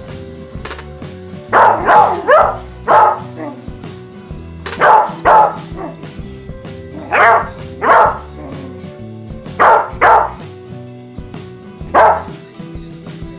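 Beagle barking repeatedly, short sharp barks in quick groups of two or three, over background music.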